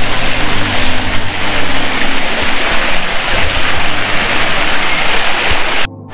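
Fountain water splashing steadily into a koi pond, a dense hiss of falling water over a low hum, which cuts off suddenly near the end.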